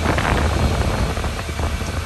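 Weichai six-cylinder diesel engine of a 3-ton telescopic loader running, heard from inside the cab as a steady low drone with a noisy hiss over it.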